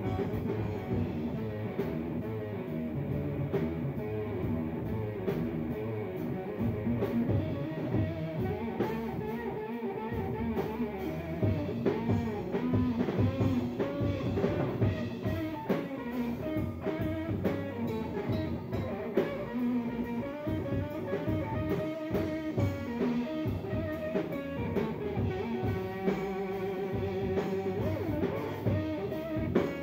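Live band playing an instrumental jam: electric guitar lead over bass guitar and drum kit.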